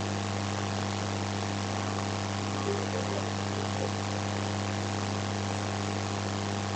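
Steady electrical hum with a stack of higher tones over an even background hiss, unchanging throughout.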